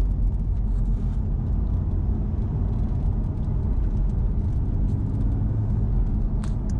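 Porsche Boxster 981 with its 2.7-litre naturally aspirated flat-six cruising with the roof down, heard from inside the open cabin: a steady low rumble of engine, tyre and wind noise.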